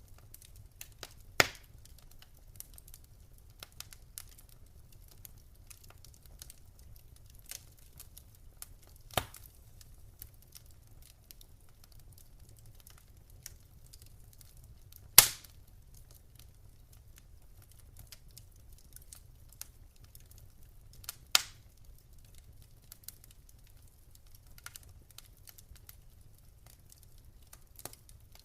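Wood fire in a fireplace crackling: scattered faint ticks and a few sharp pops, the loudest about halfway through, over a steady low rumble.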